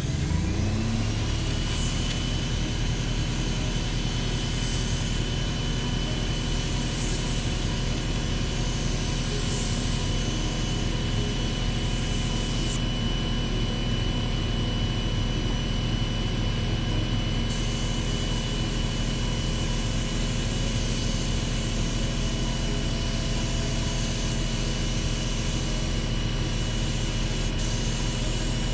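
A motor spinning up over about a second and then running steadily with a high, even whine.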